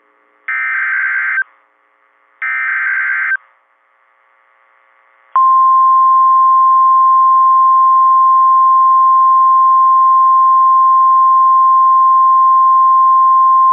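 Emergency Alert System broadcast on NOAA Weather Radio: the last two of the three SAME data header bursts, each about a second of rapid warbling high tones, then about five seconds in the steady single-pitch 1050 Hz NOAA warning alarm tone sounding unbroken. The alarm tone signals that a warning, here a severe thunderstorm warning, is about to be read.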